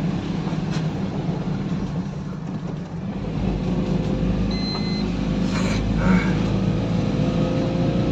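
Tata Ace mini truck's engine running, heard inside the cab while driving. About three seconds in, the engine note deepens, then climbs slowly as it pulls. A short, faint high beep sounds about halfway through.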